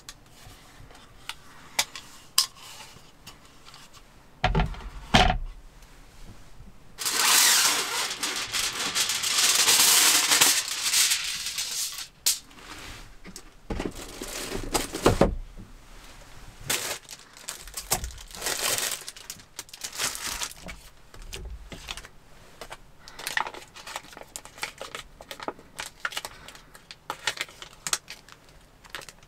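Food packaging being handled at a table: plastic wrappers and a cooking sheet crinkling and rustling. There are two knocks on the wooden table about five seconds in, then a long stretch of tearing and crinkling, then lighter rustling.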